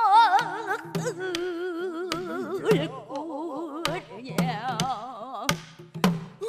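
Pansori singing: a woman's voice holding long notes with wide, wavering vibrato. A buk barrel drum accompanies it, struck with a stick on the head and rim every second or so.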